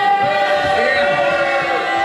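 Several voices holding long, drawn-out notes that slide slowly in pitch, in a sung or chanted way rather than spoken words.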